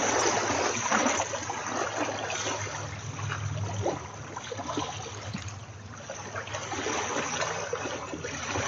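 Choppy lake water lapping and splashing, with rough noise and scattered small splashes, and a faint steady low hum underneath that fades about halfway through.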